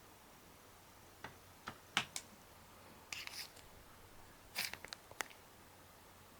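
Sparse handling sounds: a few light clicks and taps between about one and two seconds in, a short rustle near the middle, and a quick cluster of clicks a little later.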